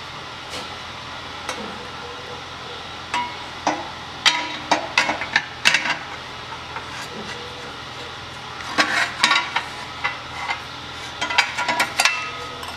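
Metal clinks and knocks as a steel flywheel with a starter ring gear and its washers are fitted onto an engine's crankshaft flange. Two clusters of sharp clicks come a few seconds in and again about nine seconds in, over a steady low hum.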